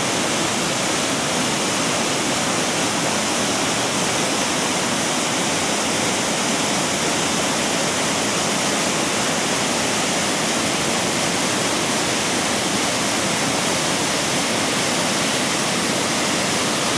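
A 120-foot waterfall pouring over its drop: a steady, unbroken rush of falling water.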